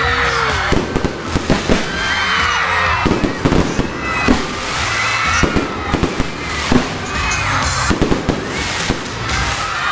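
Aerial fireworks bursting overhead in a rapid series of bangs and crackles, with music playing underneath.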